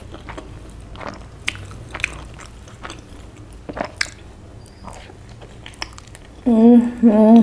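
Close-miked biting into and chewing a soft malai chaap roll: scattered wet mouth clicks and small crackles. A little over six seconds in, a loud closed-mouth hum of 'mmm' breaks in and carries on to the end.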